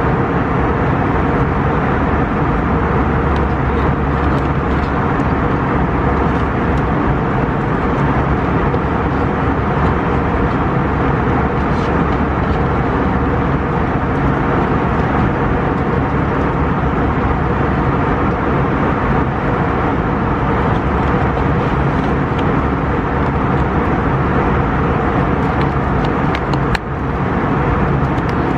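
Steady loud rumbling noise with a hiss above it, with a brief dip about a second and a half before the end.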